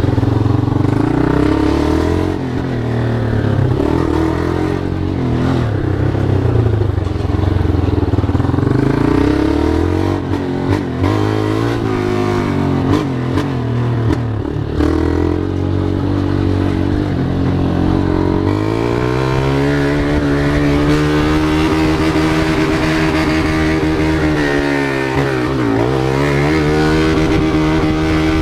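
Motorcycle engine running loud under throttle, the revs rising and falling. Near the end the revs drop sharply and then climb again.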